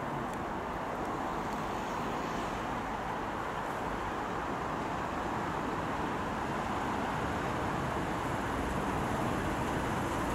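Tyne and Wear Metro electric train approaching along the track, its running noise slowly growing louder as it nears.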